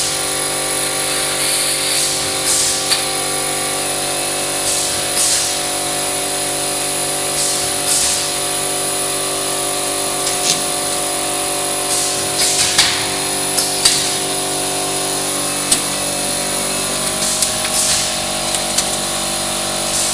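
Mobiprof GK roll forming machine running: a steady mechanical hum with several fixed tones, broken at uneven intervals by short hissing, scraping bursts of metal.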